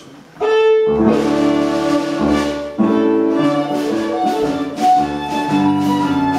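Live Scottish country dance band striking up a jig. A single held note comes about half a second in, and the full band joins about a second in, playing with a steady jig beat.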